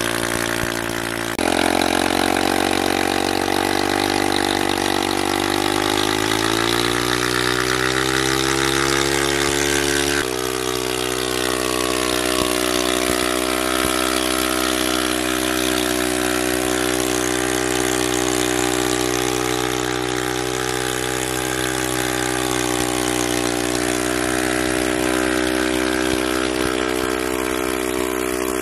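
Motorcycle engine running under load as it drives a 3-inch self-priming water pump, over the hiss of the pumped water splashing out. The engine note rises for several seconds early on, then holds at a steady speed; the sound changes abruptly twice, about one and ten seconds in.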